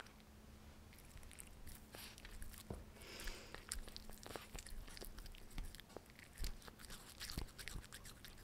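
A Russian Blue cat chewing and mouthing small pieces of baked potato: faint, irregular wet clicks and smacks of its mouth.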